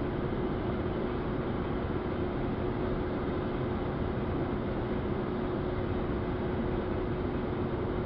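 Carrier mini-split air conditioner running steadily: a constant hum with one held tone. Its condenser fan is cycled off by the low-ambient pressure switch while head pressure builds toward the fan's cut-in point.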